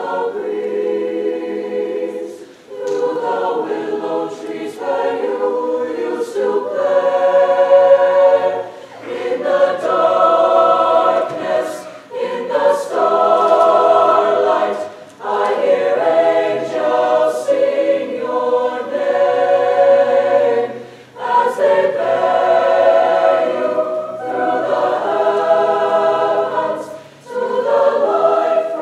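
Mixed high school choir, girls' and boys' voices together, singing in sustained phrases with brief pauses for breath every few seconds.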